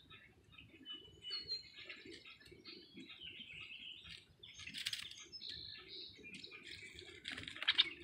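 Small songbirds chirping and calling, busiest about five seconds in and near the end, over a soft crackle of dry reeds as the mute swan works the nest material with its bill.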